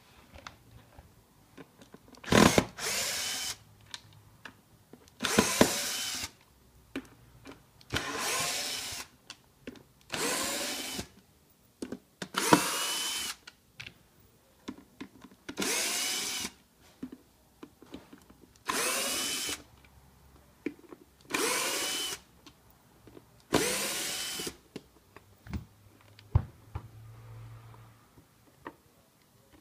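Bosch cordless screwdriver driving the screws of a plastic housing, nine short runs of about a second each with pauses between, one per screw. Its motor pitch shifts within each run as the screw loads it.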